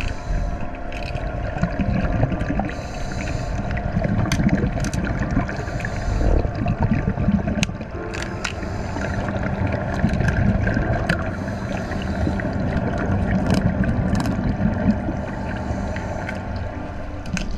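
Underwater sound inside a large aquarium tank: a steady low rumble with a faint constant hum, scattered sharp clicks, and short bubbling hiss bursts every few seconds.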